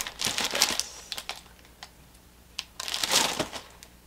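Plastic packaging bag crinkling and rustling as hands rummage inside it, in two bursts of crackly clicks with a quieter lull between.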